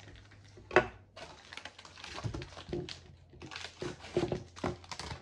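Cardboard packaging and paper being handled and rustled, in irregular scrapes and small knocks, with one sharp knock about a second in.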